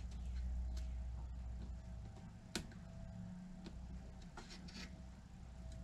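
Light clicks and ticks of pliers and a thin steel pin against the wooden hull planking as a pin is pushed through a plank into the frame of a model ship; a few sharp, separate clicks, the loudest about two and a half seconds in. A steady low hum runs underneath.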